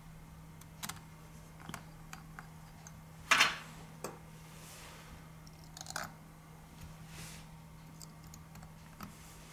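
Light plastic clicks and taps from a phone being handled, with one louder click about three and a half seconds in and a faint steady low hum underneath.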